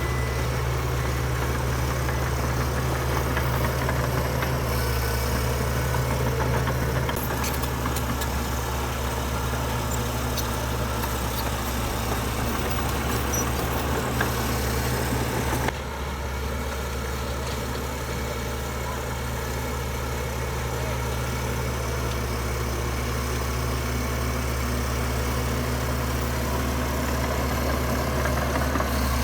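Heavy diesel engines of earthmoving machinery running steadily, a low constant hum; the sound changes abruptly about halfway through.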